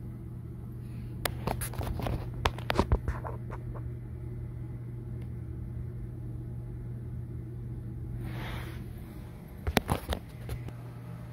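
A wooden bassinet's boards and fittings being handled and fitted together: a burst of sharp clicks and knocks early on, a short rustle, then a few more clicks near the end, over a steady low hum.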